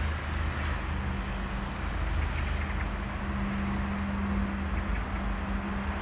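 Steady road-traffic rumble, with a low steady hum coming in about a second in.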